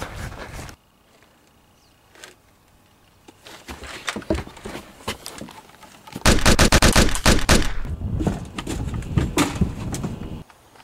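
Automatic gunfire: scattered shots, then a long, very loud run of rapid-fire shots about six seconds in, and further bursts until it cuts off suddenly near the end.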